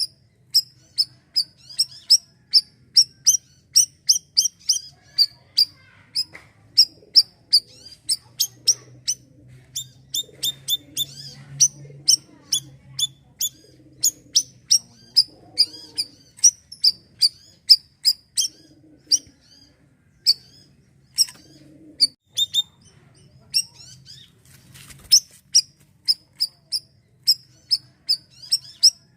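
Bayeman (siri-siri) bird calling non-stop in a long series of short, sharp, high chips, about two to three a second, with steeper down-slurred notes mixed in around the middle and again later.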